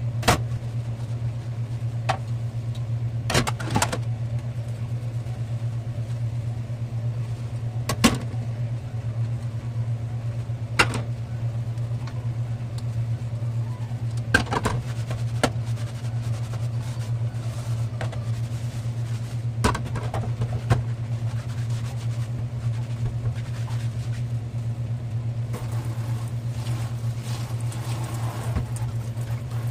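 Dishes and cooking utensils knocking and clinking while being washed at a kitchen sink: about a dozen sharp, separate knocks at irregular intervals over a steady low hum, with a hiss coming in near the end.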